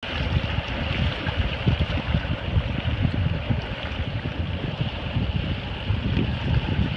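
Sea water washing at the shore, with wind buffeting the microphone in a low, gusty rumble over a steady hiss.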